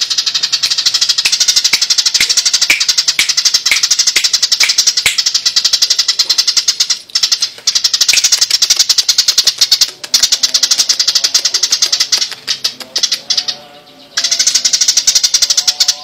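Eurasian tree sparrow giving its fast, rattling fighting chatter, an agitated string of harsh chips. The chatter breaks off briefly a couple of times and dies down for a moment about twelve seconds in before starting up again.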